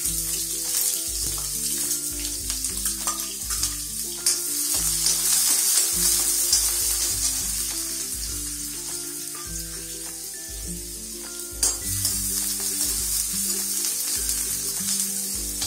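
Chopped onions sizzling in hot oil with cumin seeds in a steel kadhai, with a steady hiss and now and then the clink of a steel spoon stirring against the pan. Background music with stepped notes plays underneath.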